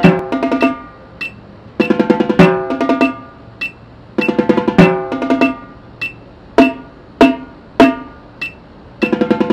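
Marching tenor drums played with sticks: an exercise of short rolls going into single strokes, moving across drums of different pitches. The phrases repeat about every two and a half seconds, with a few lone strokes in between.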